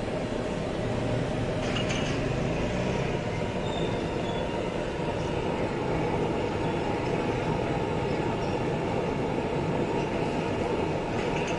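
High gas burner flame running with a steady roar under a pan of milk tea boiling up in thick froth, stirred and lifted with a wooden ladle.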